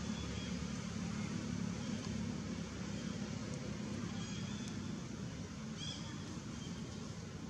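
Steady outdoor background noise with a low rumble, and a faint short high chirp about six seconds in.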